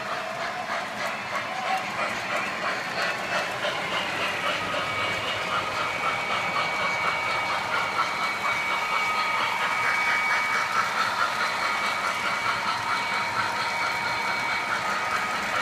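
Model electric trains running on a layout track: a steady whine with a rhythmic clicking clatter of wheels on rail joints.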